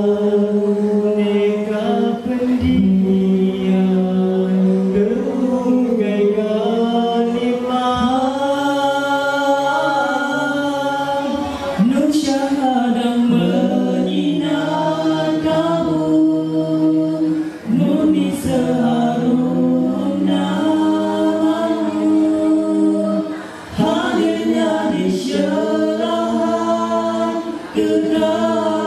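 All-male nasyid group singing a cappella through microphones in several-part harmony, with long held chords and short breaks between phrases.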